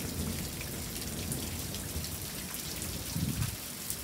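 Steady rain falling, with single drops ticking close by.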